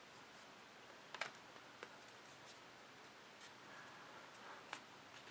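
Near silence with a few faint clicks and taps of trading cards being handled; the sharpest comes about a second in.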